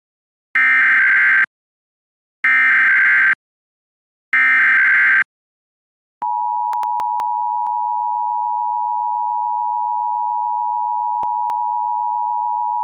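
Emergency Alert System tones on an FM radio broadcast: three short bursts of SAME header data, each about a second long, then the steady two-tone attention signal from about six seconds in. The tones announce a tornado warning.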